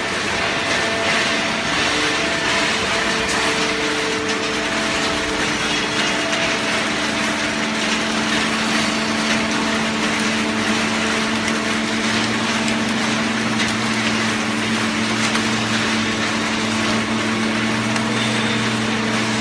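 Hydraulic carton baler machine running: a steady, loud mechanical noise with humming tones over it, and a deeper hum joining about twelve seconds in.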